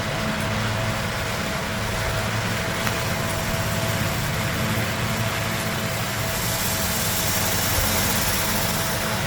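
Steady machine-like hum with a constant tone, joined by a brighter hiss from about six and a half seconds until near the end.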